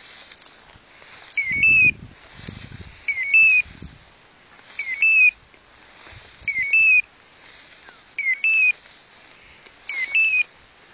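Hunting dog's beeper collar in point mode, sounding a short rising two-step chirp about every second and a half, seven times, the signal that the pointer is holding still on point. A few low rumbling bursts come in the first few seconds.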